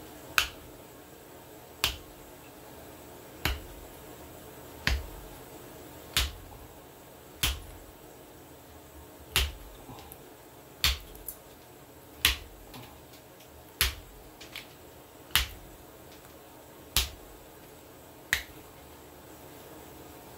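Pressure flaking a knapped stone blade with a hand-held pressure flaker: a sharp snap each time a flake pops off the edge, about one every second and a half, some thirteen in all.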